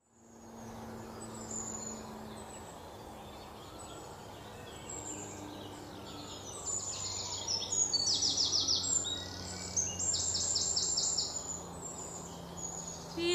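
Outdoor ambience of birds calling over a steady low hum. From about halfway, runs of rapid, repeated high chattering notes come and go several times.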